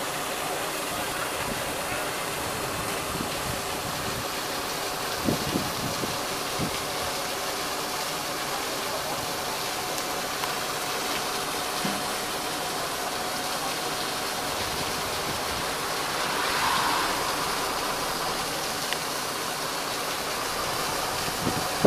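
Steady running noise of a tour bus heard from inside, an even rush with a faint engine hum beneath it. A few short knocks and faint voices come about five to seven seconds in.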